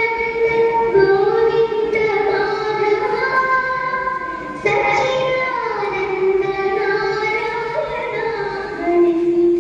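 High female voices singing a Thiruvathirakali song, the music for the dance, in long held notes that glide from pitch to pitch.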